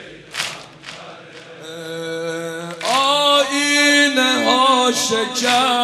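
A man singing a Shia mourning lament (noha) with a long, wavering melody and no clear words. The voice comes in about two seconds in and swells to full strength. Before it, in the first second, there are a couple of short thumps.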